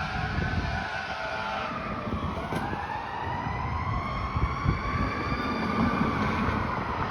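Fire engine siren wailing over the truck's engine rumble. Its pitch falls about two and a half seconds in, then slowly climbs again.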